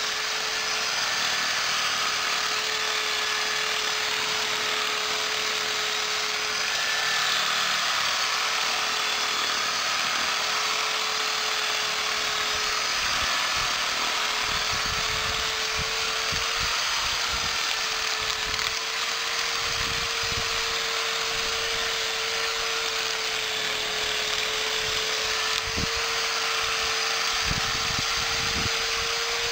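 Corded electric drill running continuously with an improvised cutting attachment in its chuck, slicing grass: a steady motor whine over the hiss of the cutter whipping through the grass, with occasional low thuds from about halfway on.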